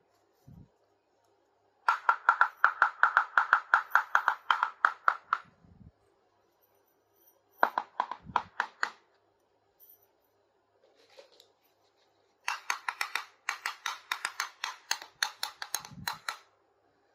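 Small plastic toy pieces clicking in three quick runs of rapid, even clicks, about six a second.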